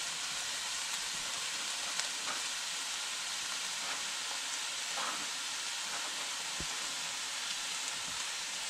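Flaked halibut and chopped onion sizzling in oil in an enamelled pan over medium heat: a steady frying hiss with a few faint ticks.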